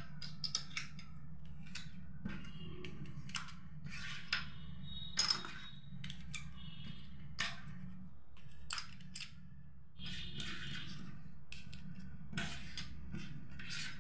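Small plastic domino tiles clicking and clattering as they are picked up and slotted one by one into the toy domino train's plastic refill loader, in irregular clicks, over a steady low hum.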